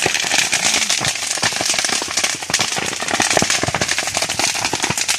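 Brush fire crackling and popping as grass and banana plants burn, a dense run of sharp pops over a steady hiss.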